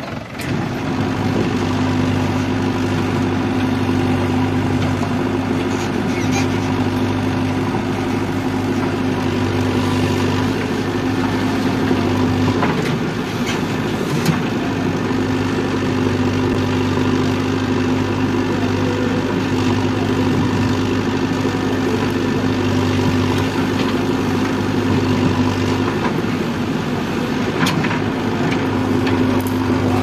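Diesel engines running steadily: a Mahindra 415 DI tractor idling close by, with a JCB 3DX backhoe loader running behind it. The engine note shifts slightly about halfway through and again near the end.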